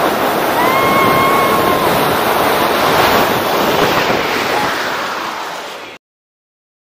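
Wind rushing over the microphone as a tube sled slides fast down an artificial snow-mat slope, with one held cry from a rider lasting about a second, a little after the start. The rushing fades and then cuts off about six seconds in.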